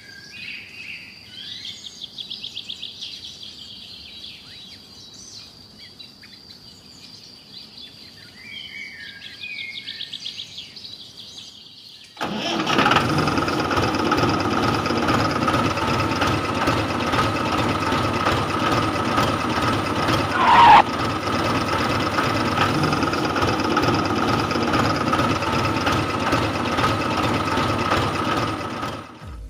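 Birds chirping and trilling over a steady high-pitched tone. About twelve seconds in, the small electric motor and gear drive of a homemade miniature toy tractor starts abruptly and runs steadily and much louder with a constant whine, with a short falling squeak partway through.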